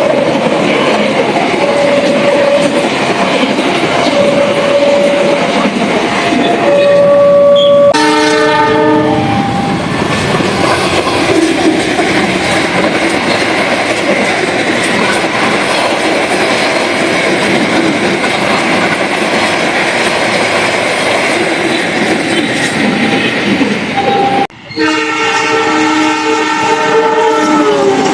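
Argo Parahyangan express passenger train running past at speed, with loud, steady rushing wheel and rail noise. The locomotive horn sounds a chord about 8 seconds in and again near the end, the second blast dropping slightly in pitch as it passes. There are short repeated tones in the first few seconds and an abrupt break in the sound a few seconds before the end.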